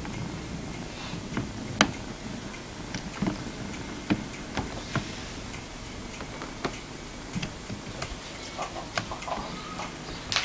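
A tabby kitten purring close up, with scattered soft clicks throughout, the sharpest about two seconds in.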